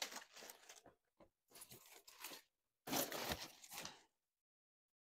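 Leafy lettuce rustling and leaves being torn off by hand while vegetables are sorted, in three bursts with short gaps between, the last the loudest.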